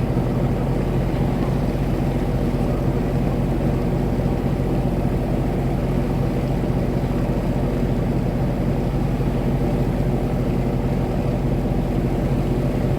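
Steady low drone of a boat's engine running at an even speed, with a constant hum and no change in pitch.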